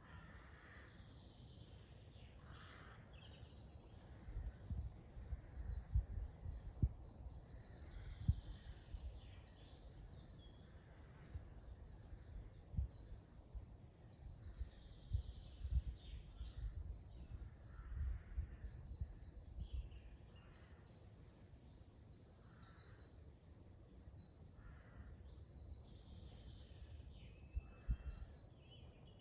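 Woodland birds singing and calling, many short phrases overlapping throughout, some harsh caw-like calls among them. Gusty low rumbles and a few thumps come and go from about four seconds in to about twenty, and once more near the end.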